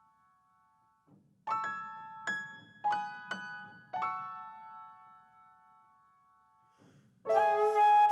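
Slow, sparse piano introduction: a handful of single notes struck and left to ring and fade, then a short pause. Near the end a flute comes in louder with held notes.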